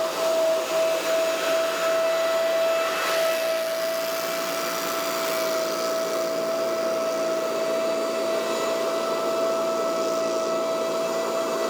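Scag Windstorm stand-on leaf blower running steadily: a constant whine over a rush of air.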